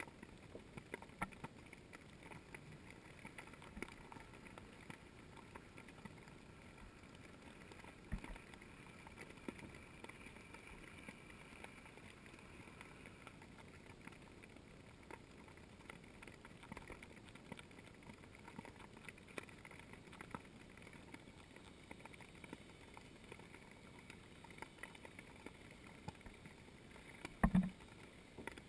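Faint underwater ambience heard through a submerged camera: a steady low hiss with scattered small clicks, and one dull thump near the end.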